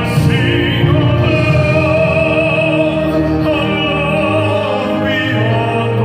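Men's vocal quartet singing a hymn, with long held notes that waver in pitch over low held voices.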